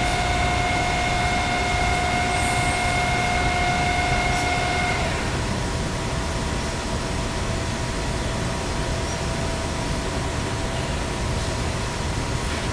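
Steady machine-shop machinery noise: a loud, even rush with several high whines. About five seconds in, the whines stop and a lower single whine carries on.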